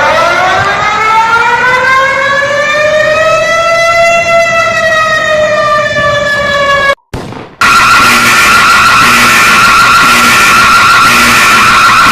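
A siren winding up, its pitch rising slowly for about four seconds and then sagging a little, cut off suddenly about seven seconds in. After a short gap, a loud, steady high-pitched screech with a rough texture.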